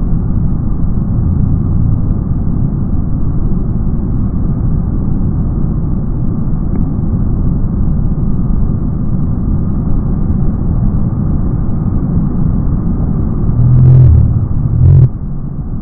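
Muddy floodwater of a swollen river rushing in a loud, steady rumble, with a couple of heavy low thumps near the end.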